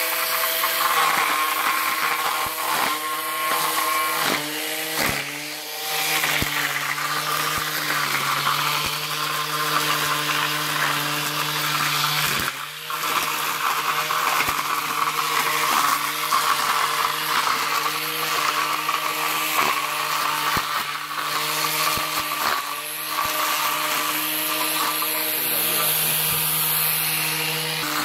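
Corded angle grinder rigged as a pole-mounted grass trimmer, running with a steady high whine. Its pitch sags and recovers several times as the cutter bites into weeds and grass, most deeply about twelve seconds in.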